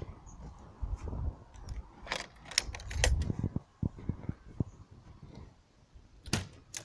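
Sharp metallic clicks and clacks of a hard-shell car roof tent's clamps being unlatched, a cluster about two to three seconds in and two more near the end, with a low rumble in between.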